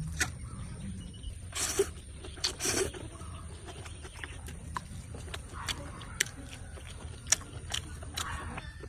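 Close-miked eating sounds from a seafood meal: wet smacking and slurping, with scattered sharp clicks and two longer slurps about two and three seconds in.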